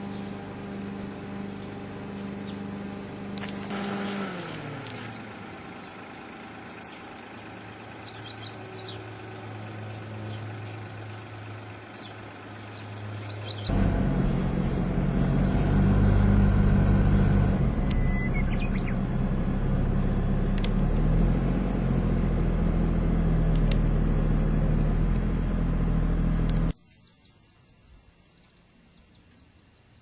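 A car engine running, its note dropping early on, then the car driving, with a much louder rumble of engine and road noise from about halfway through. It cuts off suddenly near the end. A few short bird chirps come through.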